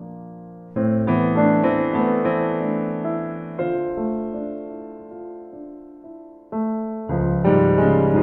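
Background piano music: chords that ring and fade away, with new chords struck about a second in, near the middle and again near the end.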